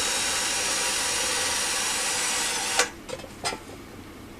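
Electric drill with a 5 mm bit running steadily, drilling into a rusted-off bolt stump in a cast-iron stove top. It stops abruptly a little under three seconds in, followed by a couple of short knocks.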